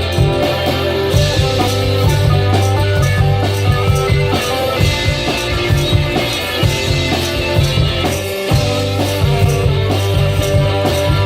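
One-man-band music: a combination guitar and bass guitar played by hand over a drum beat worked by foot pedals, with steady bass notes and a regular beat.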